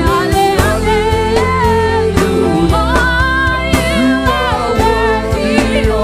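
Live gospel worship music: a lead voice singing over a band with bass, keyboard and steady drum hits.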